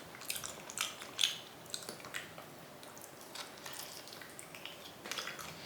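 Faint, scattered wet clicks and smacks from a mouth chewing, with a few seconds of low room noise between them.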